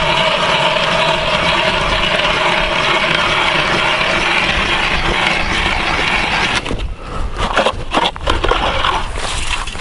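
Hand ice auger being cranked through reservoir ice: a steady grinding of the blades cutting ice. About two-thirds through it gives way to irregular scraping and crunching of ice chips and slush around the hole.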